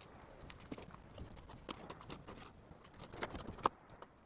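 Irregular sharp clicks and knocks from fish being handled and cut with a knife, with a quick cluster of louder knocks about three seconds in.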